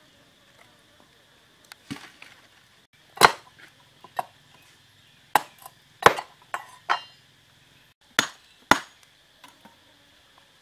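A dozen or so sharp knocks and clicks at irregular spacing, like chopping or tapping on wood, starting about two seconds in; the loudest comes about three seconds in. Behind them is a steady high insect buzz.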